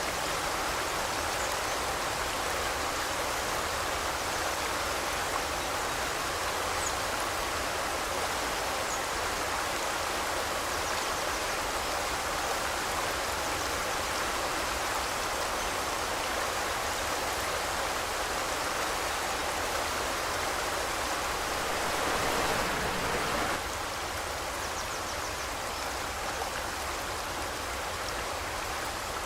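Forest river flowing, a steady rushing of water that swells briefly about three quarters of the way through, then settles a little quieter.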